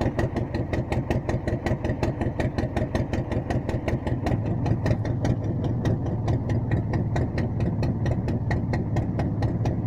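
Engine of a small tracked forest vehicle running steadily with a quick, even beat.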